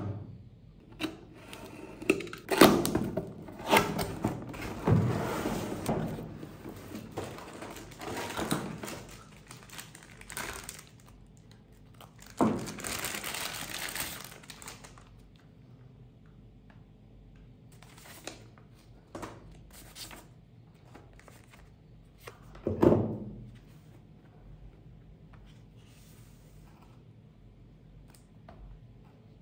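Laptop packaging being unpacked by hand: cardboard knocking and scraping, with rustling of plastic wrap and packing sheet, busiest in the first half. One heavier thump comes about three-quarters of the way through.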